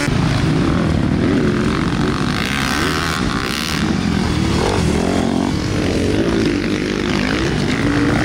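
Dirt bike engine running on a motocross track, its pitch rising and falling as the rider works the throttle.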